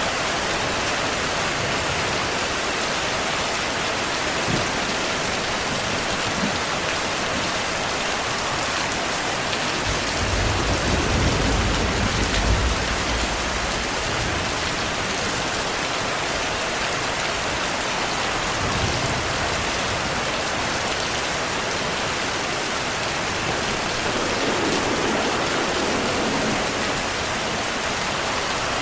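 Heavy rain falling steadily, with a low rumble of distant thunder about ten seconds in that lasts a few seconds, and fainter rumbles later on.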